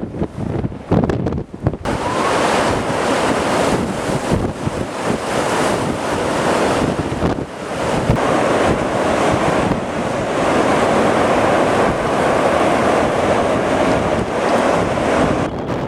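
Wind rushing and buffeting the microphone: choppy gusts at first, then a loud, steady rush from about two seconds in.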